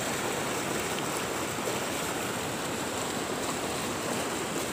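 Fast-flowing, swollen brown river rushing over a rocky bed: a steady, unbroken rush of water.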